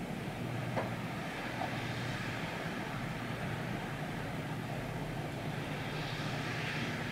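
Steady distant engine rumble with a low hum underneath, swelling slightly near the end.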